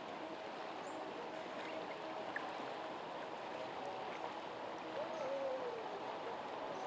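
Baliem River water flowing with a steady rush, with faint short bird chirps above it and one rising-then-falling call about five seconds in.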